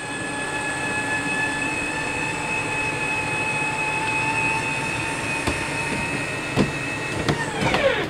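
Electric lift motor of a motorhome's drop-down overhead bunk running with a steady whine while the bed is lowered. A few knocks come near the end, and the motor winds down with falling pitch and stops.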